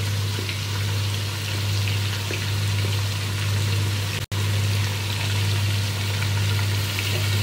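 Marinated chicken pieces frying in hot oil in a pot, a steady sizzle and bubbling, over a low steady hum. The sound cuts out for an instant a little past halfway.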